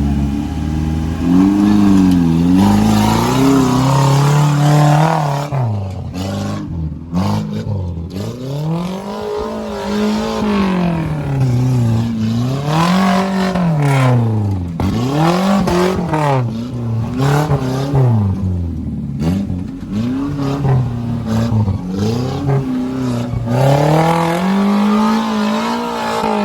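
Off-road 4x4's engine revving up and easing off again and again, its pitch rising and falling about every two seconds as the throttle is worked.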